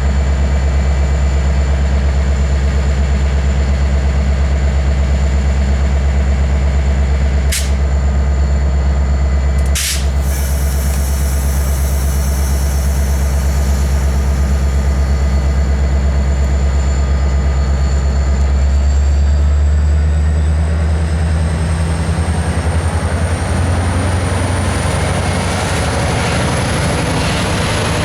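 Diesel locomotive engine running with a steady, loud low drone and a high whine above it; from about two-thirds of the way through the whine rises slowly as the engine picks up. Two sharp clicks near the middle.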